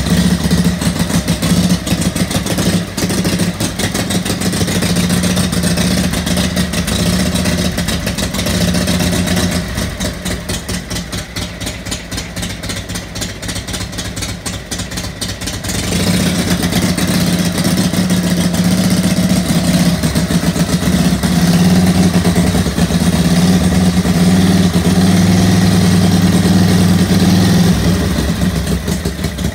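Freshly rebuilt 1955 Harley-Davidson Panhead V-twin engine running on a run stand with short open pipes. It runs at a fast idle, settles to a slower, quieter idle with separate firing beats about nine seconds in, and picks up again to a steady, louder fast idle about sixteen seconds in.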